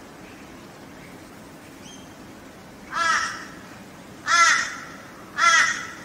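Laughing kookaburras calling in three short, loud bursts about a second apart, each a harsh, rapid chuckle of repeated notes.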